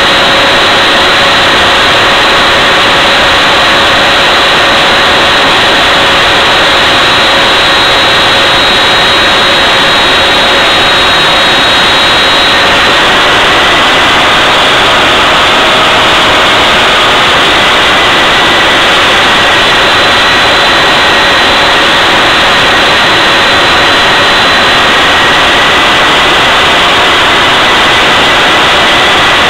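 Homemade jet engine running steadily under load on a thrust stand: a loud, unbroken roar with faint high whining tones that drift slightly in pitch.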